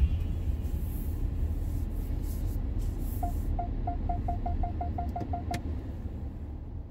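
Car parking sensor beeping, about a dozen short beeps coming faster and faster as the car closes in on a wall, over the low rumble of the car heard from inside the cabin. Background music fades out at the start.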